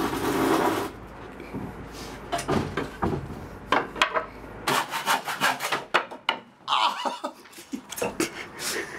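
Handsaw cutting a wooden board in short, uneven strokes, mixed with knocks and scrapes of the wood being handled.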